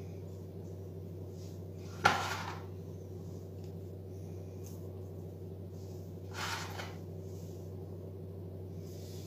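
Steady low hum throughout. A single sharp knock comes about two seconds in, and a softer, brief scrape follows at about six and a half seconds.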